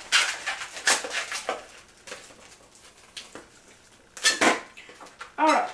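Latex 260 twisting balloons squeaking and rubbing as they are twisted and handled. There are several short, sharp squeaks and scrapes, and near the end a pitched squeal that bends up and down.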